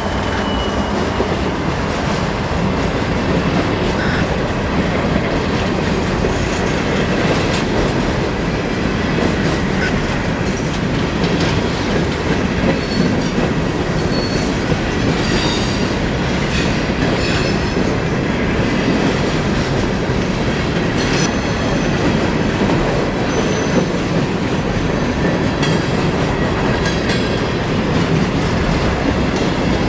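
Empty coal train's freight cars rolling steadily past on the rails, a continuous even rumble of steel wheels on track.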